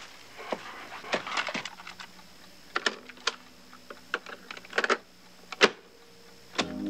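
Plastic clicks and clatter of a cassette being handled and pushed into a Realistic portable cassette recorder, with a sharp click near the end as a button is pressed. A faint steady hum starts just before the end as the tape starts.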